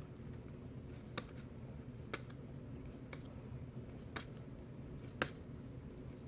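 Baseball trading cards being flipped through one at a time, each card giving a light snap against the stack about once a second, five in all.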